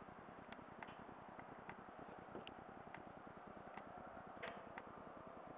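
Near silence: a faint steady hiss with light, irregular ticks about two a second.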